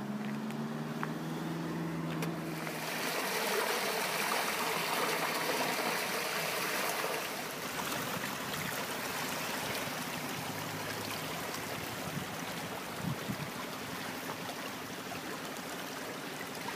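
Floodwater rushing along a swollen stream channel and pouring from a concrete culvert pipe: a steady rushing hiss, loudest from about three to seven seconds in. A vehicle's engine hum fades out in the first two seconds.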